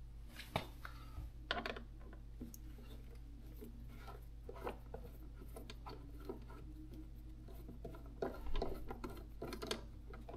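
Light scattered clicks and scrapes of a hand hex driver working the 5 mm hex bolts on a motorcycle's plastic deflector panel, with a short run of louder ticks near the end, over a faint steady low hum.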